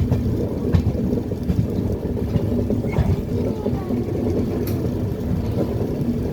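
A passenger train running on the track: a steady low rumble of wheels on rail, with a few sharp clicks, three or so spread through it.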